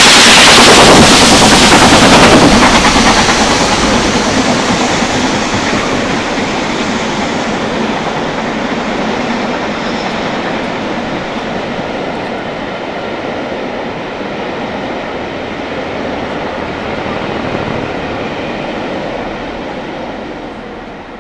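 Two LMS Black Five 4-6-0 steam locomotives working hard away from the listener with a train of coaches: rapid exhaust beats and the rumble of the train. It is loud at first and fades steadily into the distance. A strong hiss in the first few seconds fits 44871's open drain cocks.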